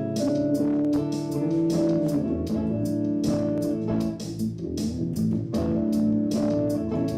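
Guitar music with bass, sustained notes over a steady beat of sharp strokes.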